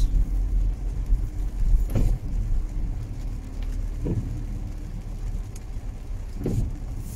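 Car heard from inside the cabin while driving slowly in the rain: a steady low engine and road rumble with the windscreen blower running. Three short squeaks come about two seconds apart.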